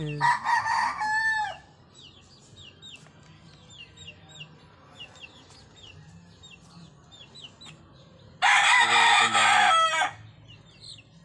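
Rooster crowing twice, once at the start and again near the end, each crow ending in a falling drawn-out note. Between the crows, a young chicken peeps over and over in quick, high, falling chirps.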